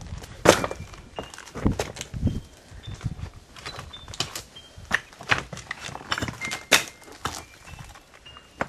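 Footsteps on rocky woodland ground, stones knocking and sticks snapping underfoot in an irregular run of sharp clicks and thuds, with short high chirps in the background.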